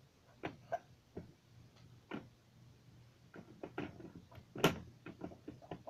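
Plastic building bricks clicking and knocking as pieces are handled and fitted: scattered light clicks, more frequent in the second half, with one sharper knock near the end.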